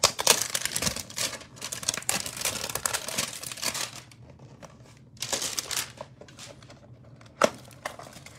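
Packaging of a cardboard trading-card hanger box being torn open and handled, crinkling and tearing for the first four seconds, then another burst about five seconds in and a single sharp tap near the end.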